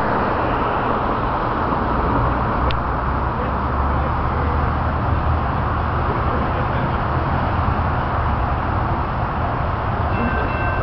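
Steady low rumble and hiss as a diesel freight train approaches from a distance; about ten seconds in, the lead locomotive's multi-chime air horn begins to sound.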